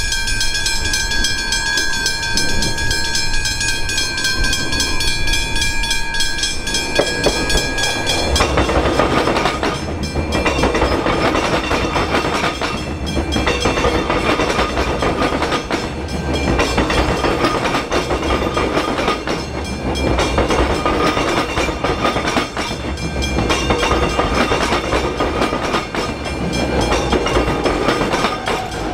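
Electric suburban train, an X'trapolis EMU, on the Glen Waverley line. Several steady high tones run for about the first eight seconds, then the loud rumble of wheels on rails takes over, swelling and easing every couple of seconds as the carriages pass.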